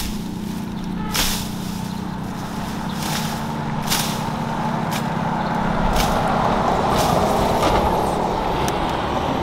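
Sickle blade, forged from a chainsaw bar, slicing through leafy vines and grass in about seven sharp swishes roughly a second apart. Under it is the steady drone of a vehicle engine, which grows louder in the second half.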